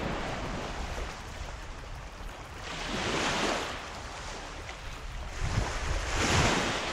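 Small waves washing onto a sandy beach, swelling about three seconds in and again, louder, near the end. The second swell comes with a hooked red drum thrashing at the surface in the shallows as it is reeled to shore.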